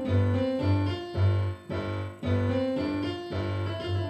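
Piano playing a repeating riff on a G7 chord: the left hand strikes a low G about twice a second while the right hand plays chords on B, C, D and F above it.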